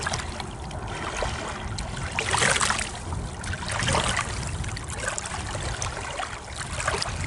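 Shallow lake water lapping and trickling among shoreline rocks, coming in gentle swells, with a low wind rumble on the microphone.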